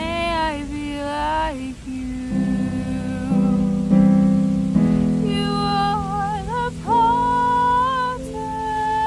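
A solo voice singing slow, held notes with vibrato over sustained accompaniment chords: a worship song.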